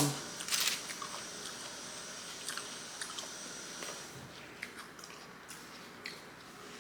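A person chewing a mouthful of lettuce-wrapped burger close to the microphone. There are short wet smacks and mouth clicks, thickest in the first second and then sparse.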